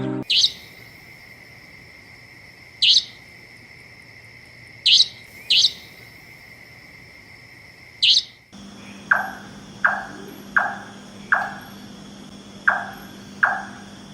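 Bird calls from two recordings in turn: first a few short, high calls sweeping downward, spaced one to three seconds apart; then, after a sudden change about eight seconds in, a lower downward-sweeping call repeated steadily, about once every 0.7 seconds.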